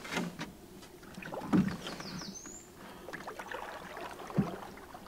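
Canoe paddling: light paddle strokes in the water with three dull wooden knocks of the paddle against the canoe, the loudest about a second and a half in. A short high rising chirp is heard about halfway through.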